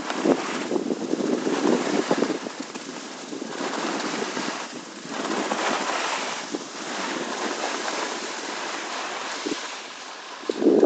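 Wind rushing over the microphone while skiing downhill, with skis scraping over packed snow, the noise swelling and fading with each turn. A louder scrape comes near the end as the skier stops.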